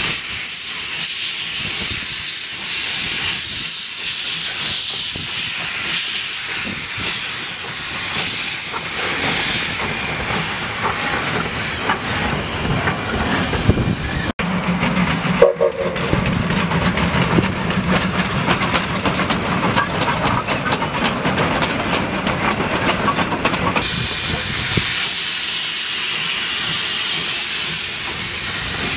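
South Australian Railways T class steam locomotive No. 251 hissing steam at its cylinders as it moves slowly. About halfway through the hiss gives way to a lower rumbling mechanical sound. Near the end the hiss returns.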